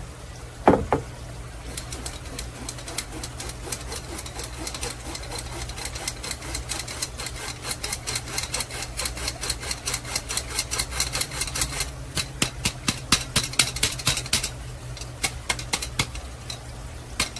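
Hand-operated metal flour sifter being worked over a steel mixing bowl, its mechanism clicking rapidly, a few clicks a second, as flour is sifted. There is a single knock about a second in, and the clicking stops briefly near the end before starting again.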